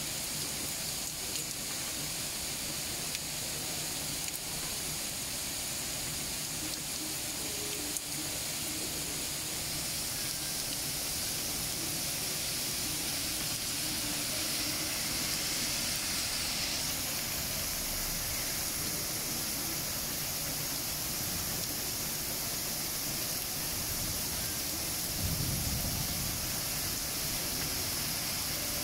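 Heavy downpour: rain pouring steadily in a dense, even hiss. About halfway through, a car's tyres swish through standing water on the street.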